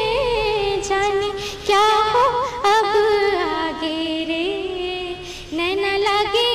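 A young woman singing solo without accompaniment, holding long notes decorated with quick ornamental turns and pausing briefly for breath three times.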